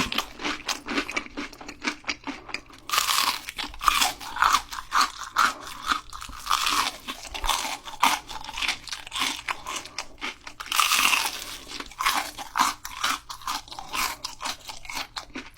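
Someone biting into and chewing crispy fried shrimp, a dense run of crunches and crackles. There is a short lull about a second in, then the crunching picks up again.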